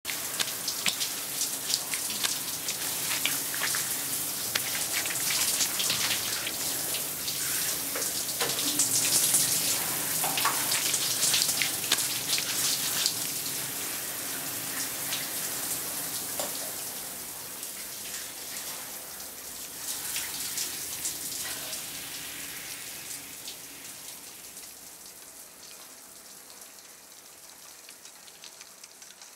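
Shower spray running and pattering onto hair and skin, a steady hiss dotted with droplet splashes that gradually fades away over the last several seconds.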